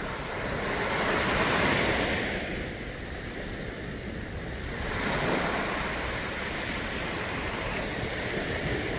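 Small waves breaking on a sandy beach and washing up the sand, the surf swelling and easing, with some wind on the microphone.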